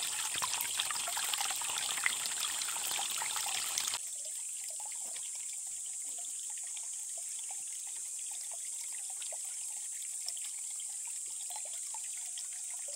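Water gushing from a black plastic pipe into a concrete pond, splashing for about four seconds. It then drops suddenly to a quieter steady trickle with a constant high hiss.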